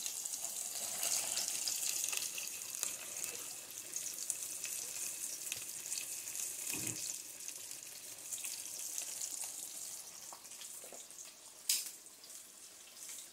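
Cornmeal-battered crappie fillets frying in a pan of hot oil: a steady sizzle with fine crackling that slowly eases off, and a single sharp click near the end.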